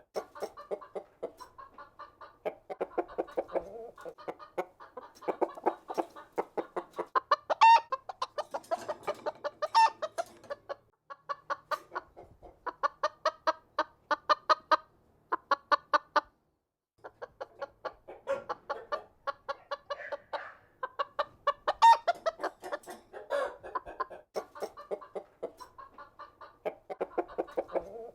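A large flock of chickens clucking together, with overlapping runs of quick clucks. A few louder, higher calls stand out, and there is a brief break past the middle.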